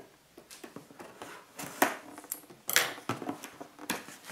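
A cardboard box being handled and cut open with scissors: a few short scraping rustles of cardboard and packaging.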